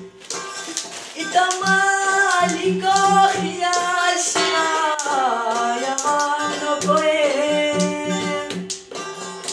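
Folk song: a voice singing with gliding pitch, starting about a second in, over a plucked Chitrali sitar (long-necked lute) and a steady hand-drummed beat on an upturned steel pan.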